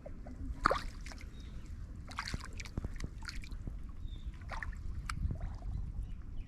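Pond water splashing and sloshing in several short bursts, the strongest about a second in, over a steady low rumble.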